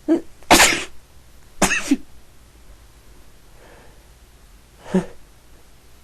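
A person sneezing, two loud sneezes about a second apart, each with a short intake of breath before it, then a softer one about five seconds in.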